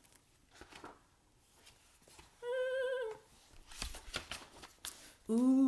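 A woman's short hummed note, held for under a second about two and a half seconds in. It is followed by the rustle and flap of a stiff picture-book page being turned.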